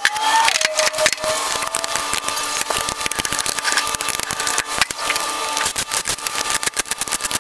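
Rocker box cover bolts on a Harley-Davidson Twin Cam 103 engine being worked loose, heard as a dense run of rapid metallic clicks and rattles. In the second half a cordless driver spins the bolts out.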